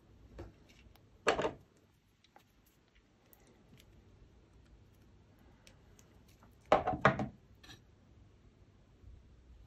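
Handling noises: a plastic model part and a wooden stick being set down and picked up on a cutting mat. There is a short clatter about a second in, and two quick, louder knocks about seven seconds in, with faint ticks between.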